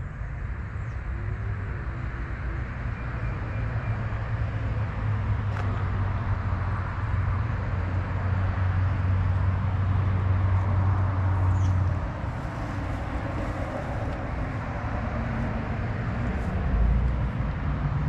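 Carrier 38AK commercial air-conditioning condensing unit running, with fan noise over a steady low hum. About twelve seconds in, the hum cuts out and the sound drops, as the unit shuts down, while the fan noise carries on.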